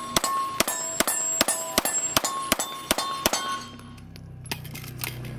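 Rapid string of handgun shots, about four a second, each answered by the ring of a steel plate target being hit. The shooting breaks off for about a second a little past the middle, a reload, then a few more shots with steel ringing.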